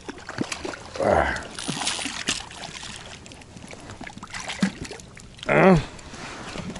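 Water splashing and dripping as a hooked zander is brought in at the boat, with scattered small knocks and two short wordless vocal sounds from the angler, the louder one near the end.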